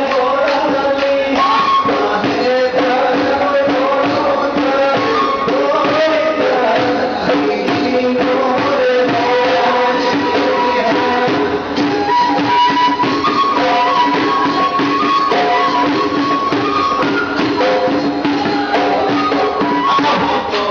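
Assamese folk dance music: a sung melody over a quick, steady percussion beat.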